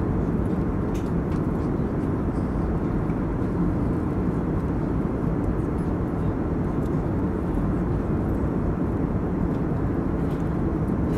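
Steady cabin noise inside an Airbus A321 in flight: engine and airflow noise, deep and even, unchanging throughout.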